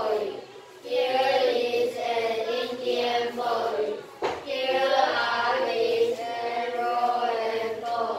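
A group of children reading an English text aloud in unison, in a sing-song choral chant with short breaks between phrases.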